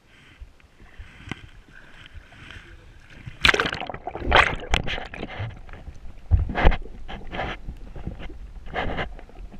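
Water splashing and sloshing as a kayak capsizes and is rolled back upright with the paddle (an Eskimo roll). Faint water sounds at first, then a sudden loud splash about three and a half seconds in as the boat goes over, followed by repeated surging splashes as the kayaker sweeps back up.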